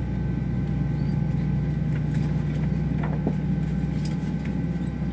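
Steady cabin noise of an Airbus A321 on the ground before takeoff: a low hum of air conditioning and aircraft systems with a few faint steady whine tones above it, and a couple of faint clicks.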